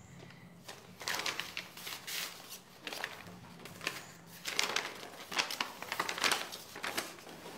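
Paper rustling and crinkling as a folded letter is drawn from its envelope and unfolded, in a series of short rustles that grow busiest near the end.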